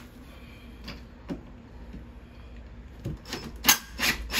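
A hand tool working against a wooden wall stud: a few faint clicks, then about three seconds in a quick series of loud strokes.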